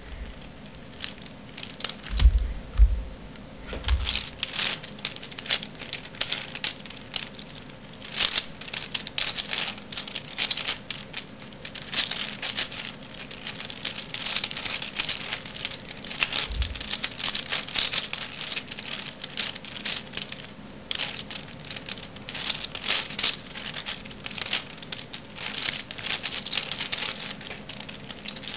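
Black V-Cube 5x5 puzzle cube being turned layer by layer through a solve: a continuous patter of short plastic clicks and clacks from the moving layers. A few dull thumps come about two to four seconds in, and one more about halfway.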